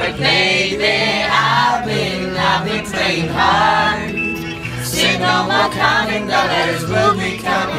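Music with several voices singing, over steady low notes.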